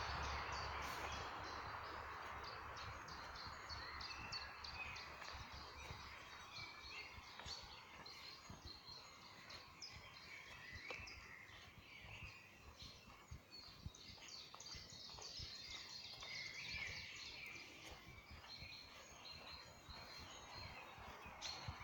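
Faint chorus of small woodland birds chirping and singing, many short calls and trills overlapping, over a soft hiss of background noise that eases off in the first few seconds.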